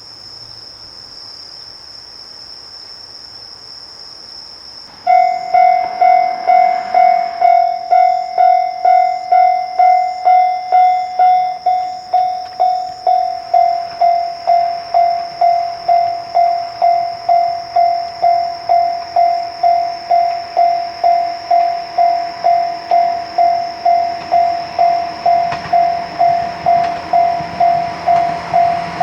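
Japanese railway level-crossing warning bell starting about five seconds in and ringing steadily about twice a second: the crossing signal has activated for an approaching train. A steady high-pitched tone runs underneath.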